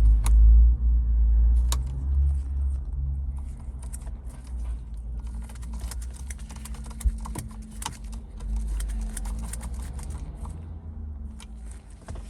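Scattered clicks and taps of hard plastic parts being handled and fitted, over a heavy low rumble from a phone microphone being handled, strongest in the first couple of seconds.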